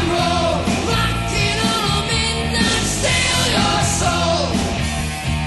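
Rock music with a sung vocal.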